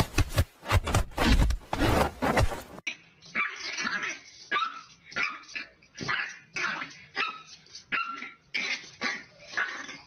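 Rapid scraping and knocking strokes on a wooden toy box, about three a second, as a kitten paws at it; about three seconds in this gives way to a French bulldog puppy giving short, high-pitched barks, about two a second, at its own reflection in a mirror.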